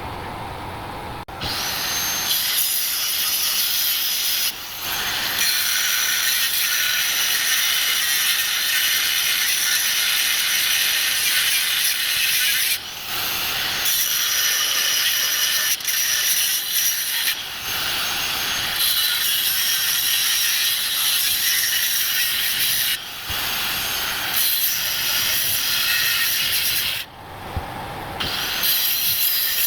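Power cutting tool running under load in long runs, stopping briefly about four times and coming back up to speed each time.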